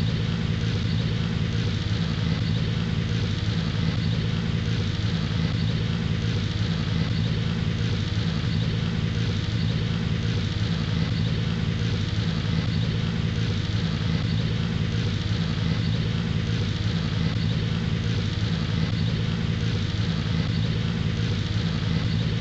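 An engine idling steadily: an even low hum that does not change in pitch or level.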